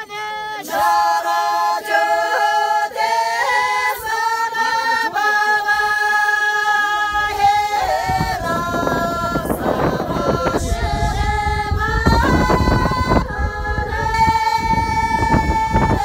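A group of women singing a song together without instruments, holding long, steady notes. About halfway in, a low rumble rises under the singing for several seconds, then fades.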